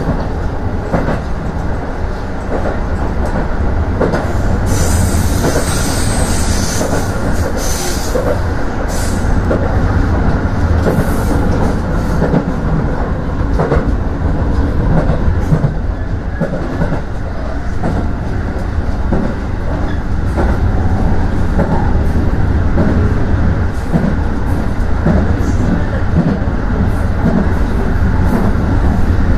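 Aonami Line electric commuter train running on its elevated track, heard from inside the rear cab: a steady rumble of wheels on rail with repeated clicks over the rail joints. A brief high-pitched hiss comes in about five seconds in and lasts a few seconds.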